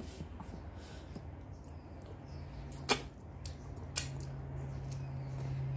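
Someone eating rice and curry by hand: soft chewing and mouth noises, with two sharp clicks about a second apart near the middle, over a steady low hum.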